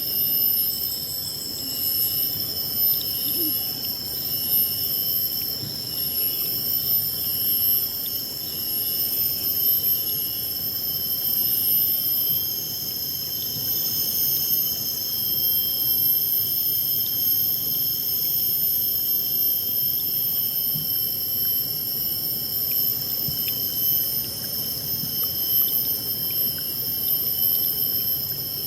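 River water flowing over rocks as a low rushing, overlaid by a steady high-pitched whine of several pure tones that holds unchanged throughout.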